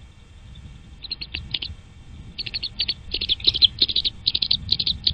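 Nestling birds cheeping in a rapid, high-pitched chorus. The calls start sparsely about a second in and become dense and louder from about halfway, typical of chicks begging for food in the nest.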